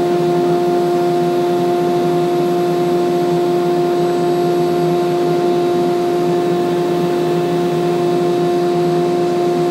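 A loud, steady machine roar with a constant low hum tone over a wide hiss. It starts and stops abruptly and drowns out any speech completely.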